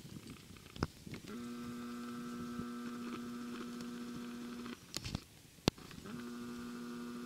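A steady mechanical hum at one fixed pitch with several overtones, like a small motor. It runs for about three and a half seconds, stops suddenly, and comes back for another second and a half, with a few sharp clicks in between.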